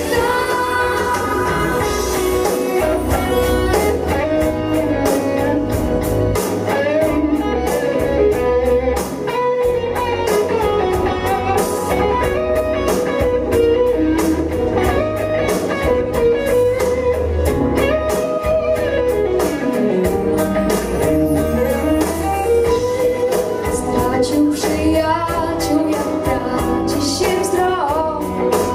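A boy singing a pop song into a handheld microphone over a backing track with guitar. The music runs without a break; midway he lowers the microphone for an instrumental passage.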